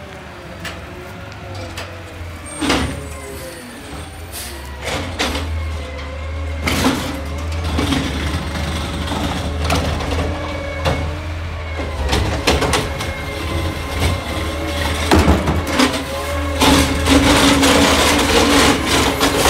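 Natural-gas-powered automated side-loader garbage truck running and creeping along, with repeated clanks and knocks from the body and a hiss of air brakes. The truck gets louder over the last few seconds, with a steady whine as it draws up to a trash cart.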